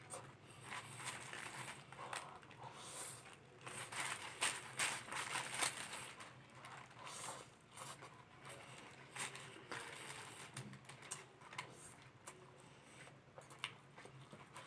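Close-up eating sounds: chewing and mouth noises with irregular small clicks and rustles, loudest about four to six seconds in.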